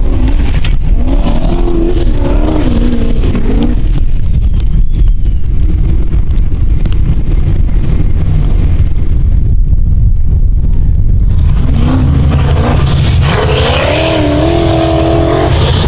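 Formula Offroad hill-climb car's V8 engine running loud under hard throttle, its pitch rising and falling as it revs. The revving is strongest in the first few seconds and again from about twelve seconds in.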